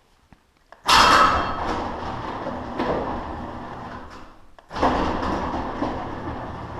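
Chain-drive garage door opener starting up and running, stopping after about four seconds and starting again right away. The drive chain grinds, a sign that it is worn or wrongly tensioned.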